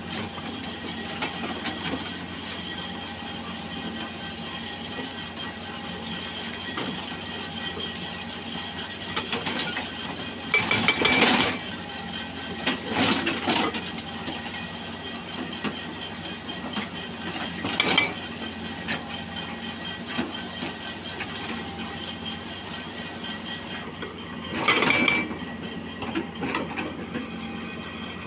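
Excavator running steadily, with loud metallic clanks and rattles every few seconds as the machine works.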